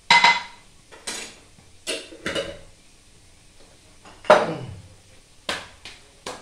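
Metal kitchen utensils and cookware clattering: about eight separate knocks and clinks, each ringing briefly. The first, at the start, and one about four seconds in are the loudest.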